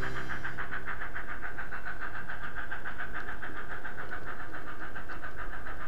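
N gauge model train running along the track, heard through a small train-mounted camera: a steady mechanical whir with a fast, even chatter.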